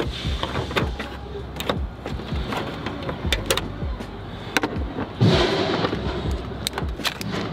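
Scattered clicks and knocks from tool and hand handling around the headlight mount, over a steady low hum, with a louder rush of noise about five seconds in.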